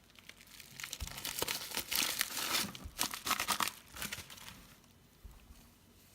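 Plastic packaging crinkling and rustling as a parcel is handled and opened. The crackling is busiest between about one and four and a half seconds in, then dies away.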